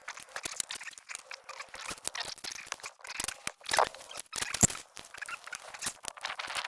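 Irregular small clicks, rattles and scrapes of hands and parts being worked on a motorcycle's tail section during removal of the old tail light. There is one sharp knock about four and a half seconds in.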